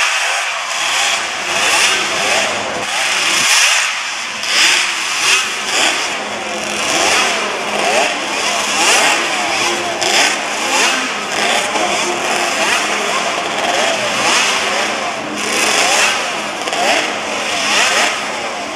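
Several classic Yamaha two-stroke Grand Prix racing motorcycles running together, their throttles blipped over and over so that the engine notes rise and fall in quick overlapping swells.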